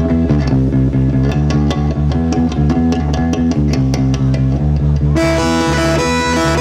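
Live rock band playing an instrumental passage without vocals: a repeating bass and electric guitar riff over drums with steady cymbal ticks. About five seconds in, fuller sustained guitar and keyboard chords come in on top.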